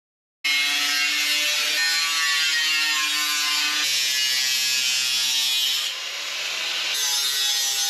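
Electric angle grinder grinding a piece of steel clamped in a bench vise, starting suddenly about half a second in with a steady high whine and hiss; it eases off for about a second around six seconds in, as the disc comes off the metal, then bites again.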